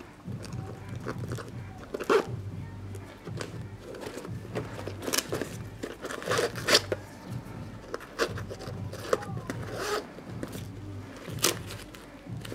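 Nylon straps and webbing of a MOLLE first-aid pouch being handled: the strap rustles and slides through the webbing loops, with sharp scrapes and clicks about five times.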